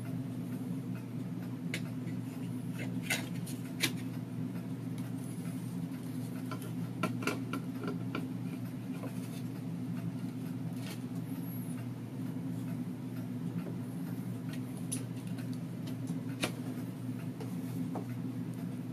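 Scattered light clicks and knocks of plastic tape reels being handled and seated onto a reel-to-reel deck's hubs, over a steady low hum.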